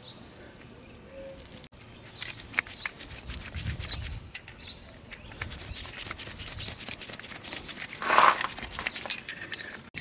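Light clicks, scrapes and rubbing of small carburetor parts as gloved hands fit the jet needle back into the throttle slide; the clicks begin about two seconds in.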